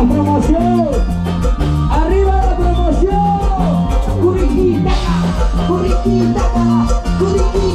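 Live band playing carnaval music: a steady bass line and beat under a melody, with a cymbal-like hiss about five seconds in.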